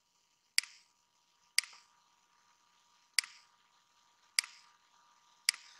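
Computer mouse clicking five times at uneven intervals, picking wall edges one after another to draw a floor boundary.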